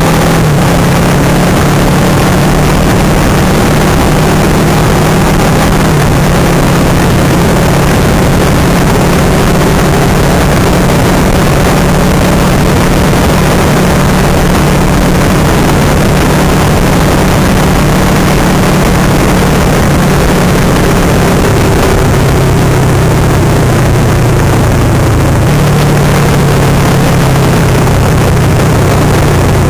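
Kawasaki Versys 650's parallel-twin engine running steadily at cruising speed, under heavy wind rush on the handlebar-mounted camera's microphone. The engine's tone drops slightly a little past twenty seconds in.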